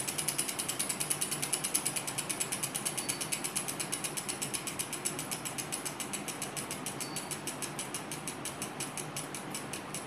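Small model Stirling engine running, its linkage and flywheel ticking rapidly and evenly; the ticks slowly spread out and grow fainter as the engine slows, its spirit burner taken away.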